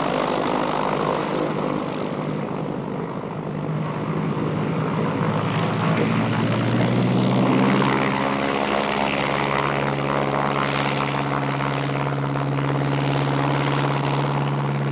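Single-engine floatplane's engine and propeller running, rising in pitch from about four to nine seconds in as the throttle opens for a takeoff run across the water, then holding a steady full-power drone.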